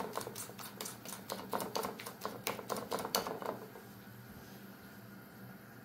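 A utensil beating an egg, yogurt and flour batter in a bowl, clicking rapidly against the bowl for about three and a half seconds, then stopping. The batter is still being brought to a thick, cake-batter consistency.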